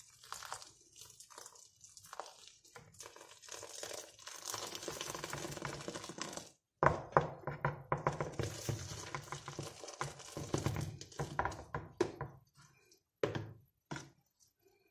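Hot water poured from a kettle onto dry bulgur in a plastic bowl, then, about halfway through, a spoon stirring and scraping the wet bulgur against the bowl, with a few knocks near the end.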